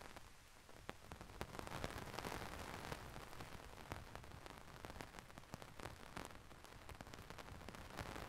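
Heavy rain falling as a steady hiss, with many single drops ticking sharply close by; it gets a little louder about two seconds in.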